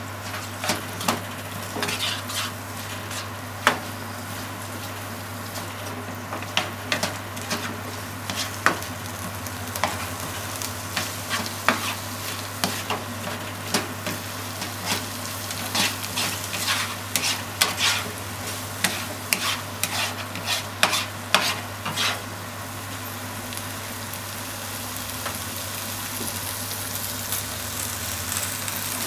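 Onion and minced meat sizzling in a nonstick frying pan while being stirred, with frequent sharp knocks and scrapes of the utensil against the pan. The knocking stops about two-thirds of the way through, leaving a steady sizzle.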